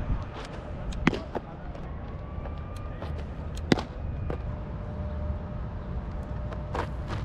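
Baseballs popping into a catcher's mitt: two sharp pops about two and a half seconds apart, with a few fainter clicks, over steady wind rumble on the microphone.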